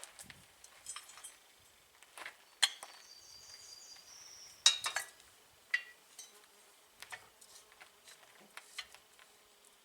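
Scattered light clinks and taps of metal parts and tools being handled, with a brief high whine lasting about a second, about three seconds in.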